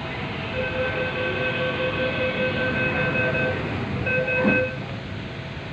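Bangalore metro train carriage at a station: a steady rumble with a level electronic tone held for about three seconds, breaking off and sounding again briefly, with a single knock near the end.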